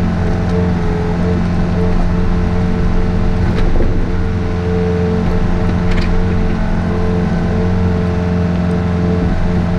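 Takeuchi TB153 compact excavator's diesel engine running steadily under work, with a couple of faint clicks.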